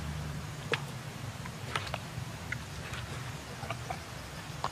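Pieces of raw fish steak being set down on a bare stone, each making a short wet tap or click, about five of them spread through the few seconds, over a steady low rumble.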